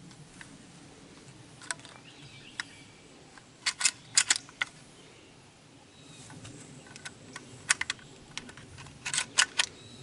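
Sharp mechanical clicks and clacks in short irregular clusters, typical of handling a lever-action 12 gauge shotgun between shots. No gunshot is heard.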